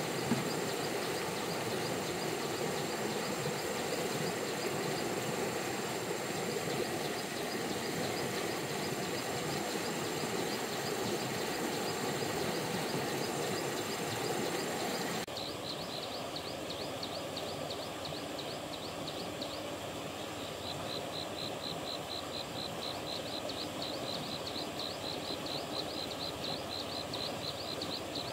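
Stream water running steadily, a constant rushing; it drops to a quieter, duller rush about halfway through, and a few seconds later a fast, high-pitched pulsing trill sets in and keeps going.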